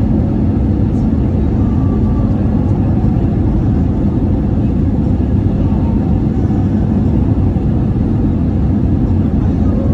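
Airbus A320neo cabin noise in flight: a steady, loud low rumble of engines and airflow with a faint constant hum.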